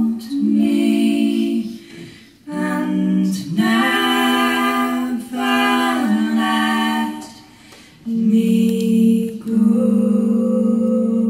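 Three women's voices singing unaccompanied in harmony, with long held notes in phrases broken by short pauses for breath.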